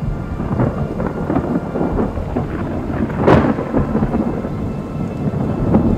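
Thunderstorm: rain falling under a low rumble of thunder, with a sharp crack of thunder a little past halfway.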